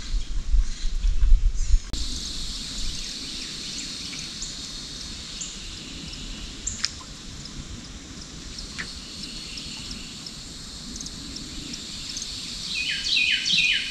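Birds chirping over a steady high insect hum, with a bird calling a quick run of loud notes near the end. A low rumble on the microphone fills the first two seconds and cuts off abruptly.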